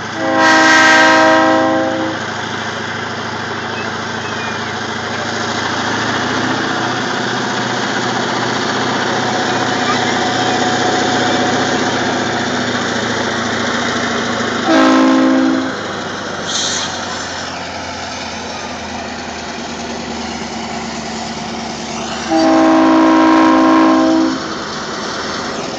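Norfolk Southern diesel locomotive sounding its multi-tone air horn three times: a long blast at the start, a short one midway and another long one near the end. Between the blasts the engine rumbles steadily as the freight train rolls by.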